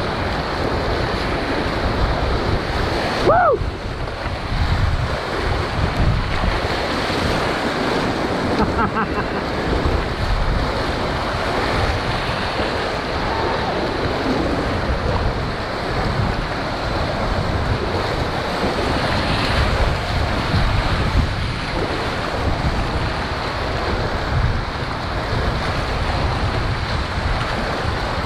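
Whitewater rapids rushing and splashing around a kayak, with wind buffeting the camera microphone in gusts. A brief high sound that rises and falls about three seconds in is the loudest moment.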